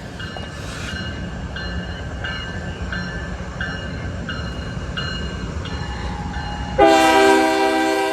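Union Pacific freight train approaching with a low rumble that slowly builds, over a bell dinging about twice a second. About seven seconds in, the locomotive's air horn sounds suddenly, a loud, held multi-note chord.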